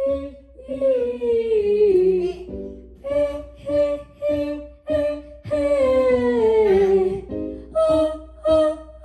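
A child's voice doing singing warm-up exercises: short detached sung notes repeated on one pitch, twice broken by a long slide down in pitch.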